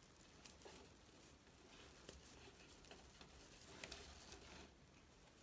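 Near silence, with faint rustling and soft ticks of paper yarn crochet fabric being handled and worked with a crochet hook; it grows quieter near the end.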